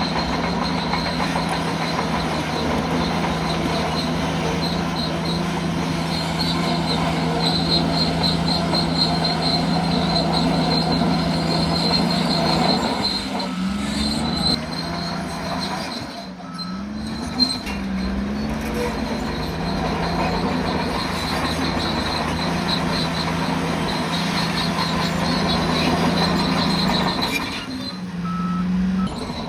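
Bulldozer at work: diesel engine running steadily with its pitch rising and falling several times midway, over a continuous high squeal and clatter from the steel tracks.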